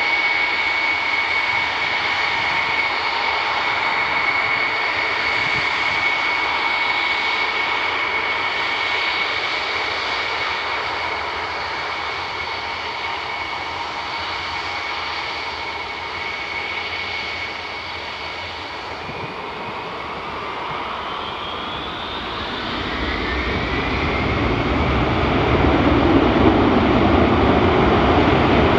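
Il-78M tanker's four D-30KP turbofans running with a steady high whine over a jet rush. About twenty seconds in, the whine rises in pitch and a deeper, louder roar builds toward the end, as the engines spool up.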